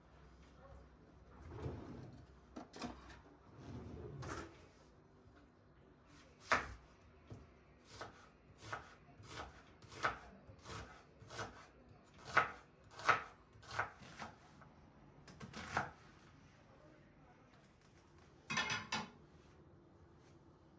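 Knife chopping food on a wooden cutting board, a slow series of about a dozen sharp strikes at roughly one every two-thirds of a second. Softer scraping and handling sounds come before the strikes, and a short rattling clatter comes near the end.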